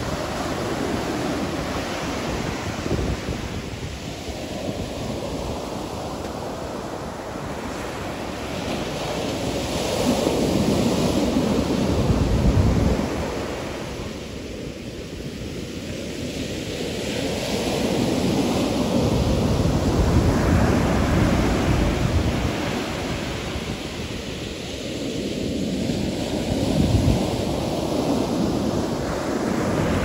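Ocean surf breaking on a sandy beach: a steady wash of noise that swells and eases as each set of waves comes in, roughly every eight to ten seconds.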